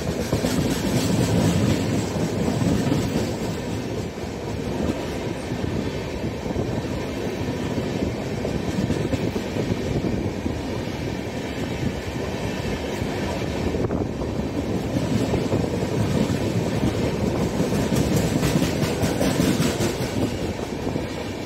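Two passenger trains passing each other at speed on adjacent tracks, heard from aboard one of them: a loud, steady rush of wheels on rail with rapid clatter over the rail joints.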